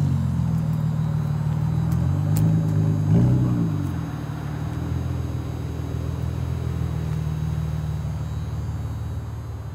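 Infiniti G35 coupe's V6 engine running as the car drives off at low speed, with a brief rev that rises and falls about three seconds in, then settling to a steadier, quieter drone.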